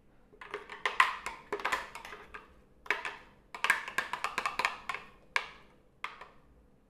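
Irregular clusters of sharp knocks and taps from a spatula and mixing bowl as thick, sticky almond cake batter is scraped and knocked out into a cake pan.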